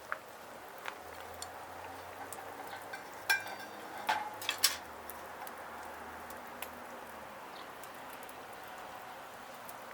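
Shrimp pilaf cooking in an aluminium skillet over a small wood fire: a steady low hiss, with a few sharp knocks and clinks between about three and five seconds in, two of them ringing briefly.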